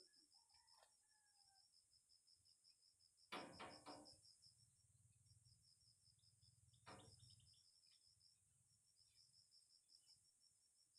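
Faint insect chirping, a rapid, even pulsing that goes on throughout. A short clatter of knocks comes about three seconds in, and a single knock about seven seconds in.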